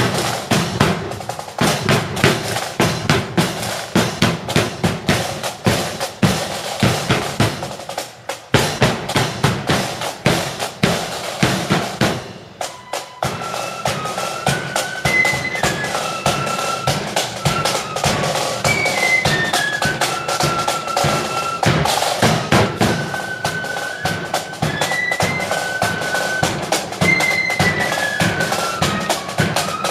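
Marching flute band on parade: snare and bass drums beat a steady march with rolls, and about 13 seconds in the flutes come in with a high tune over the drums.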